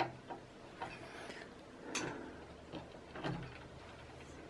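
Handling noise of hand tools on an aluminium-extrusion printer frame: a sharp click at the start, a short scraping rustle around one to two seconds in, and a few light clicks and knocks near three seconds in.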